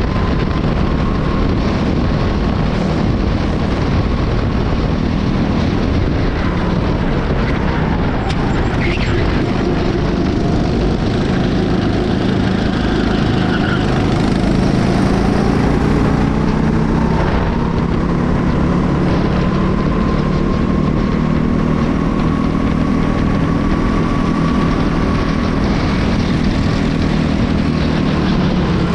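Honda four-stroke engine of a racing kart running at speed, its pitch dropping around ten seconds in and then climbing back up, under heavy wind noise on the onboard camera.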